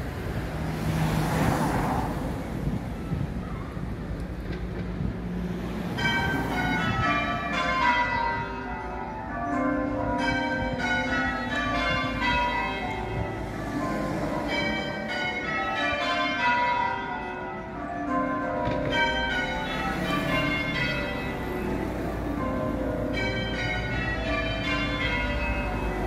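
Ring of church tower bells rung in rounds for a death, each round stepping down in pitch from the highest bell to the lowest and following the last about every two seconds, starting about six seconds in. Before the bells start there is a rushing noise.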